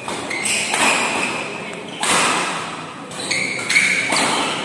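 Badminton rackets striking the shuttlecock in a fast doubles rally, a series of sharp echoing hits. The hardest hits come about two seconds in and near the end, the last as a player jumps to smash.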